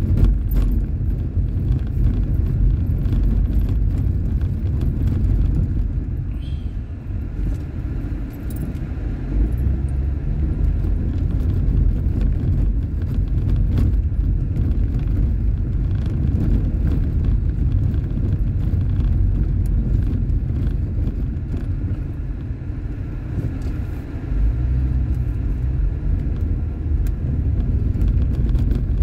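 Car cabin noise while driving slowly over a wet, potholed street: a steady low engine and tyre rumble with scattered light rattles and clicks from the car's interior.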